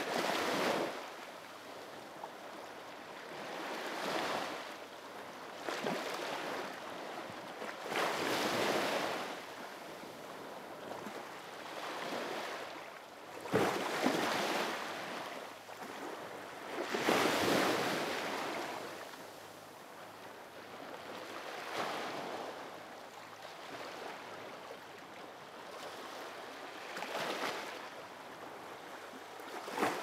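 Sea waves breaking and washing in. Each surge of surf swells and fades every few seconds, with a sharper splash about fourteen seconds in.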